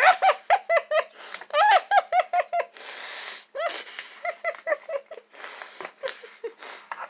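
A boy's muffled closed-mouth vocal sounds in quick short hums, several a second, with a noisy breath out about three seconds in. They are his reaction to the taste of a dirty-dish-water Bean Boozled jelly bean.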